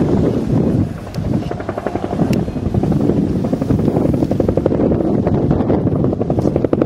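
Firefighting helicopter flying past at a distance, its rotor blades beating in a rapid, regular pulse that grows clearer about halfway through.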